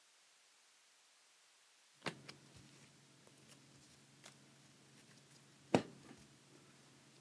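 Clicks and taps of trading cards and plastic card holders being handled at a desk: a sharp click about two seconds in, a few light ticks, then a louder click about four seconds later, over a low steady hum.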